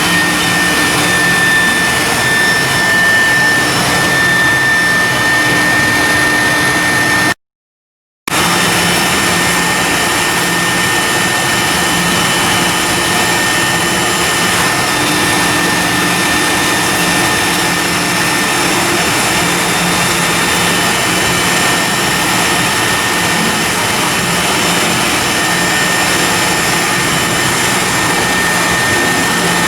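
Ship's diesel machinery running steadily and loudly, a dense roar with a steady high-pitched whine over it. The sound drops out completely for about a second a little past seven seconds in, then resumes unchanged.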